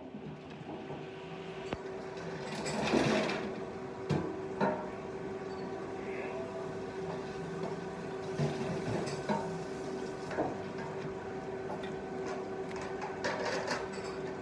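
Wooden chopsticks clicking and knocking against a ceramic rice bowl and plate now and then, over a steady background hum. There is a louder rustle about three seconds in.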